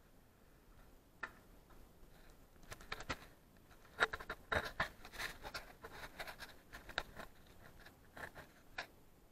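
Footsteps crunching and scraping over loose rock rubble, irregular, sparse at first, then thicker and louder from about three seconds in.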